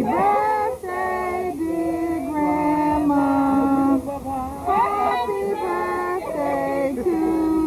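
Women's and children's voices singing a slow song together, with long held notes.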